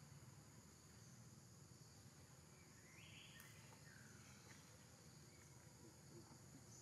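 Near silence: faint outdoor ambience with a steady high insect drone, and one brief high call about three seconds in.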